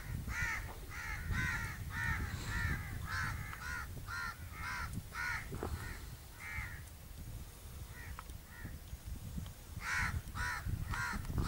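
Crows cawing: a run of short, harsh caws, about two a second, that stops after about seven seconds and starts again with a few more near the end.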